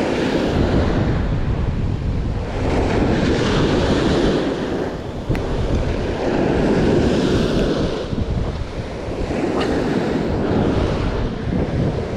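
Strong wind buffeting the microphone over waves washing in, the noise swelling and easing every few seconds, with a brief sharp click about five seconds in.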